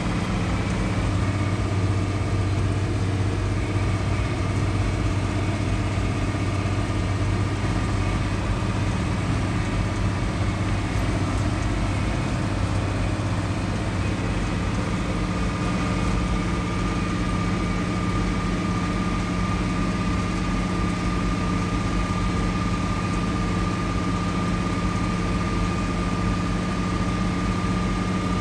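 Tractor engine running steadily while driving, heard from inside the cab. A thin steady whine over it grows stronger about halfway through.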